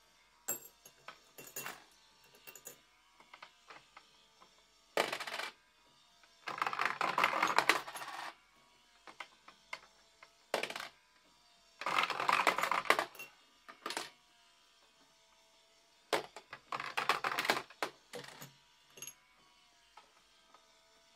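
Coins dropped into two plastic Tipping Point coin-pusher games, clattering down through the pegs onto the shelves in bursts of rattling clicks. There are three longer, louder cascades, about seven, twelve and seventeen seconds in.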